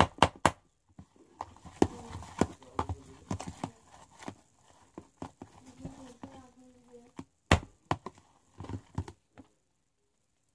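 Small spoon stirring thick slime in a plastic tub, knocking and scraping against its sides in irregular clacks, some sharp and loud; the stirring stops about nine seconds in.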